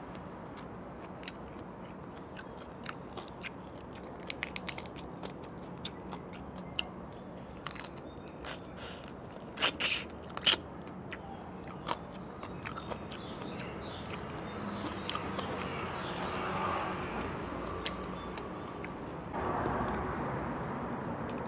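Close-miked eating: biting and chewing shrimp, with sharp crunches scattered through, the loudest about ten seconds in. Near the end comes a rougher rustling as a shrimp's shell is pulled apart by hand.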